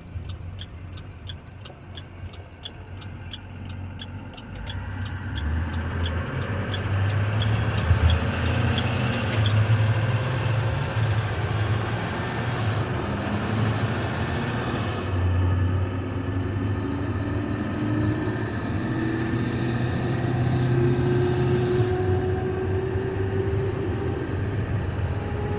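International Terrastar dump truck running, its engine noise growing louder about five seconds in, with a whine that slowly rises in pitch through the second half. A fast regular ticking, about three a second, runs through the first ten seconds and then stops.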